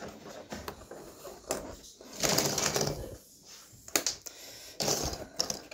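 Cardboard jigsaw puzzle pieces clicking and sliding on a tabletop as they are picked up and set down, in irregular small taps and rustles.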